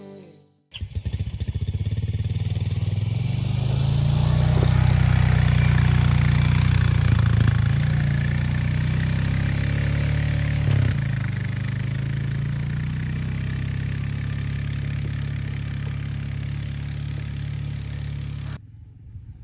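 A motor vehicle's engine running under way: it starts suddenly, climbs in pitch over the first few seconds as it speeds up, then runs steadily until it cuts off near the end.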